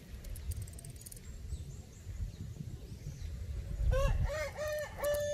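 A rooster crowing near the end: a few short notes followed by one long held note.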